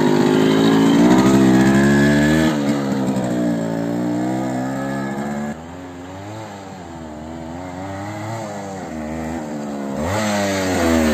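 Yamaha RX 100's two-stroke single-cylinder engine running as the motorcycle rides, its pitch rising and falling with the throttle. About halfway it drops suddenly to a faint sound from a distance, then grows louder as the bike comes back, with a rev near the end.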